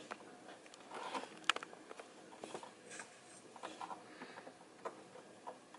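Scattered small clicks, taps and rustles of hands handling gaming-chair parts and turning in the assembly screws, with one sharp click about one and a half seconds in.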